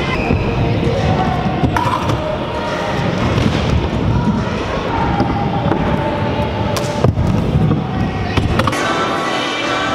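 Stunt scooter wheels rolling on the wooden ramps of a skatepark bowl, a steady rumble under the chatter of a busy hall. There are sharp clacks of scooter impacts about two seconds in and again about seven seconds in.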